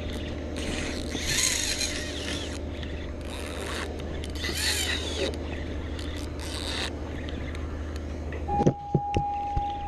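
Large saltwater spinning reel being cranked, its rotor and line giving bursts of hissing, rubbing noise over a steady low hum. Near the end the hum stops, a few knocks sound and a steady high tone comes in.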